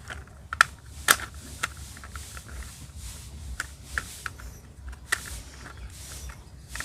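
Plastic toy-vehicle parts being handled and fitted together: light rubbing with a few sharp clicks and taps spread through.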